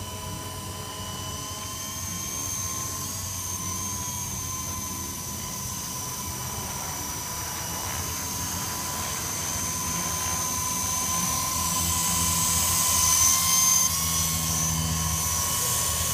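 Toy RC helicopter in flight: a steady high whine from its motor and spinning rotors, growing louder as it comes closer overhead near the end.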